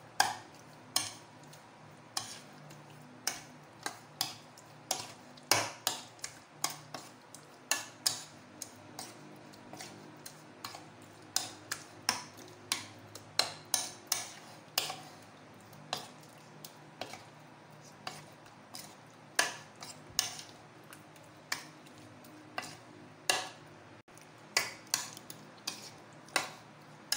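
Metal spoon stirring raw chicken cubes through a thick marinade, clinking against the bowl at irregular intervals, about one or two clinks a second.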